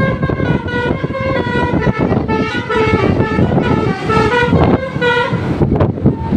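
Bus 'telolet' multi-tone air horn playing a tune of changing notes, one pitch after another, over the noise of the passing bus.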